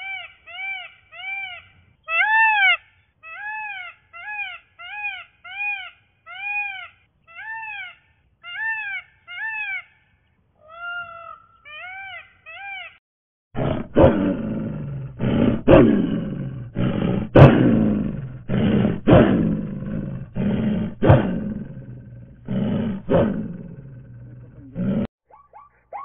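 Indian peacock calling: a quick series of short, meow-like notes that rise and fall, about two a second, for roughly the first half. Then a series of much louder, harsher calls that stops a second before the end.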